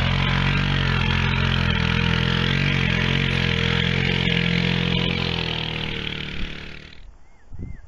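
ATV (four-wheeler) engine running steadily as the gear-laden quad drives off through mud, fading over the last couple of seconds and cutting off about seven seconds in. A bird chirps a few times near the end.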